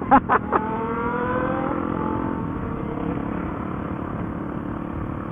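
Motorcycle engine accelerating, its pitch rising for about a second and a half, then settling into a steady drone of engine and road rush.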